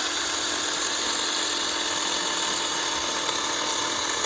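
Craftsman 8-amp corded electric chainsaw running steadily, cutting through a branch about four to five inches thick, its motor tone sagging slightly under the load.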